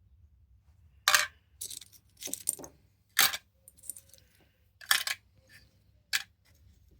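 Small stone and mineral specimens clacking against each other and a hard surface as they are handled and set down: a string of sharp, irregular clicks, the loudest about a second, three seconds and five seconds in.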